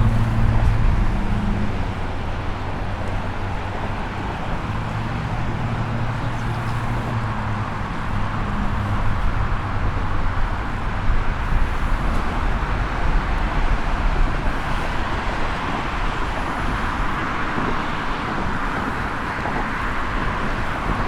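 Steady road traffic noise, with the low drone of a large vehicle's engine over the first several seconds that fades out by about nine seconds in.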